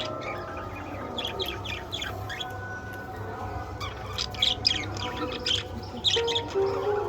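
Budgerigars chirping in quick clusters of short, high calls, over faint background music.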